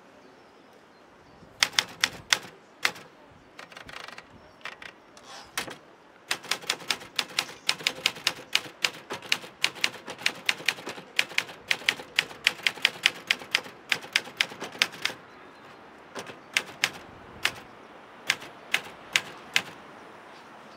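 Portable manual typewriter, keys clacking as a poem is typed: a few scattered strokes from about a second and a half in, then a fast, even run of about four strokes a second, a brief pause, and more strokes near the end.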